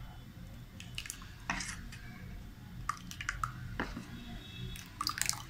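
A steel spoon stirring thin dosa batter in a stainless steel bowl: scattered clinks and scrapes of metal against the bowl's side, with wet stirring in the batter.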